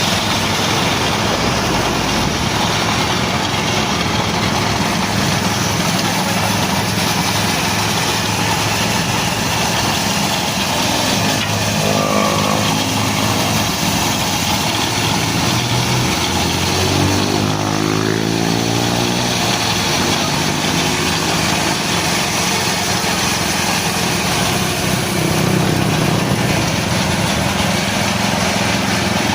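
Small petrol engine driving a bandsaw, running steadily. Its pitch shifts briefly about twelve seconds in and again a few seconds later.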